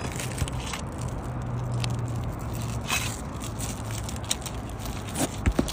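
3-tab asphalt shingles being worked apart, the adhesive seal strip crackling and tearing as it breaks, with scattered scrapes and a few sharper clicks near the end. A low steady hum runs underneath.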